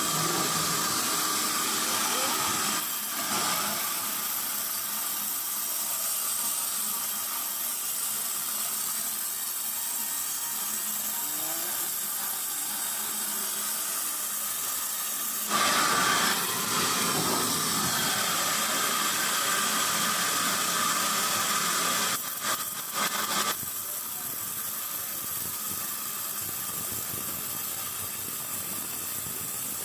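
Steady hissing noise of sawmill machinery running, louder for about a second around halfway and dipping briefly a few times a little later.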